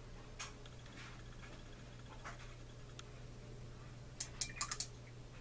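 A steady low hum with a few faint taps. Near the end comes a quick run of about six sharp clicks, then a single ringing clink, as a paintbrush is knocked against hard painting supplies.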